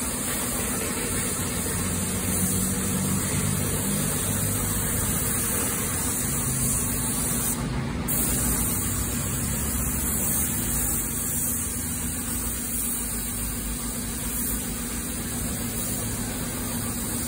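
Gravity-feed paint spray gun hissing steadily on compressed air while spraying paint, with a steady low machine hum beneath it.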